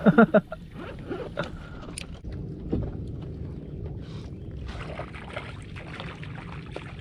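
Steady low hum of a boat engine, with a few small knocks and clicks of handling in the boat. A short burst of voice at the very start.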